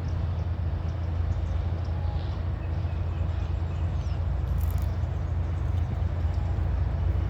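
Lakeside outdoor ambience: a steady low rumble with a few faint bird chirps above it.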